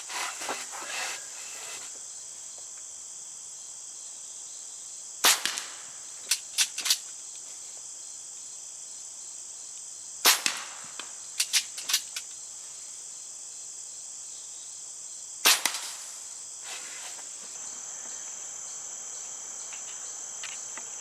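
Diana Bandit .22 PCP air pistol firing three shots about five seconds apart, each a sharp crack followed by a few quieter clicks. Crickets chirr steadily throughout.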